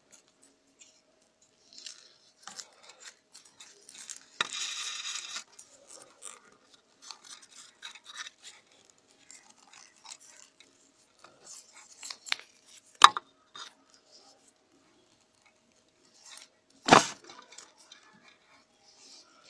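Rustling and crinkling of rolled newspaper tubes being woven by hand around a binding-wire petal frame, with scattered small clicks. A longer scratchy rub comes about four and a half seconds in, and two sharp clicks about thirteen and seventeen seconds in are the loudest sounds.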